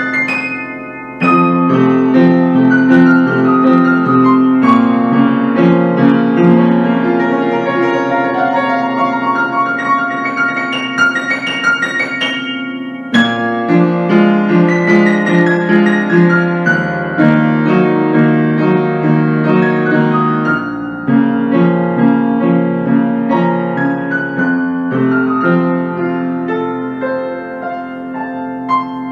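Acoustic upright piano played solo: a melody over a steady lower accompaniment. The playing breaks off briefly about a second in and again near the halfway point, then carries on.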